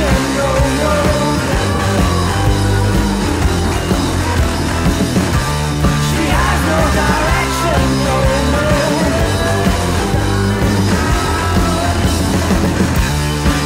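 Rock band playing live: drum kit and electric guitar, with the drummer singing into a microphone.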